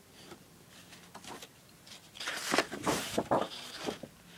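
Paper and cardstock handled, rustling and crinkling in a quick run of crackles from about two seconds in.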